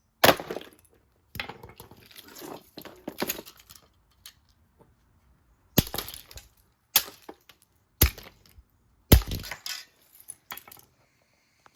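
An Anko fan heater being smashed: sharp cracking blows, a rattling clatter of breaking pieces, then about five more hard hits roughly a second apart, each followed by loose bits rattling.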